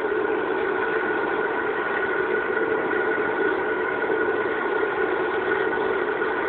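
Home-made waste oil furnace running, its burner fed by a spray gun, making a steady even noise with a constant hum.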